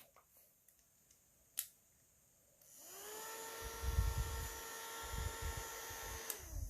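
Mini electric fan switched on: a click, then about two and a half seconds in its small motor whirs up to speed and runs with a steady whine. Its airflow buffets the microphone, and the motor stops just before the end.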